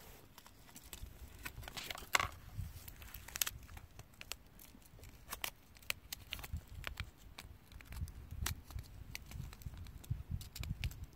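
Irregular small clicks and crinkling over a low rumble, like something being handled close by.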